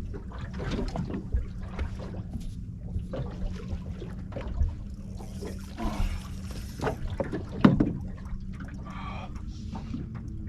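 Water sloshing and splashing, with scattered knocks on a small boat, while a big flathead is played on the line. A steady low hum runs underneath.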